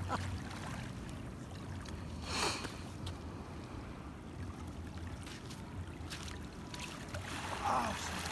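Quiet shoreline ambience from calm shallow sea: soft water movement over a low steady rumble, with a brief swish about two and a half seconds in.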